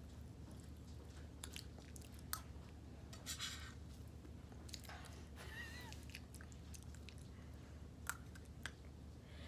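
Faint close-up chewing of soft mashed potatoes, mouth and lip sounds of eating from a metal spoon, with a few sharp clicks scattered through. A short breathy noise comes about three seconds in and a brief faint squeak near the middle.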